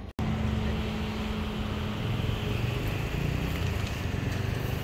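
Steady low rumble and hiss of street background noise, with a faint steady hum through the first couple of seconds.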